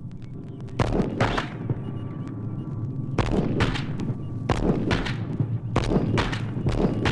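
Gunfire: about a dozen shots at irregular spacing, starting about a second in, each trailing off briefly, over a low rumble.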